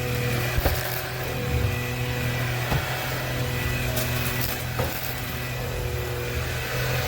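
Cordless stick vacuum running steadily, a motor hum with a high whine and airflow hiss, with a few light knocks from the head.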